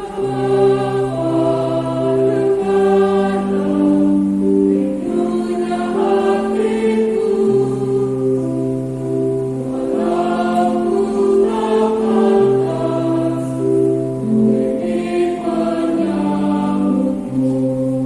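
Church choir singing a slow communion hymn in harmony, long held chords changing every two or three seconds.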